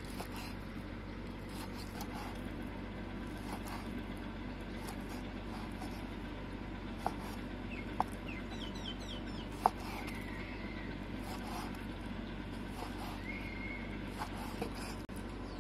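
Large kitchen knife slicing raw chicken breast and tapping the wooden chopping board, with a few sharp knocks of the blade on the board, over a steady background hiss. A few short high chirps come in about halfway through.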